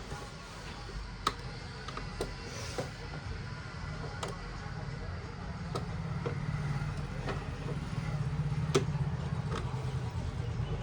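Scattered small clicks and taps of parts and tools being handled on an opened laptop, over a steady low background rumble.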